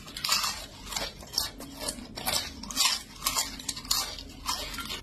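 Close-up crunching of a person biting and chewing crispy fried food, sharp crackly crunches about twice a second.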